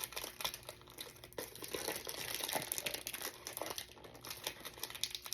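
Perfume box packaging crinkling and rustling in irregular bursts as hands struggle to work it open; the packaging is hard to open.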